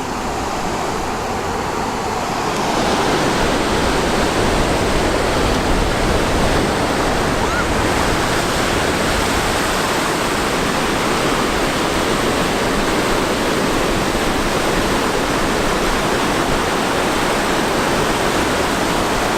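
Ocean surf rushing steadily on a beach, growing a little louder a couple of seconds in.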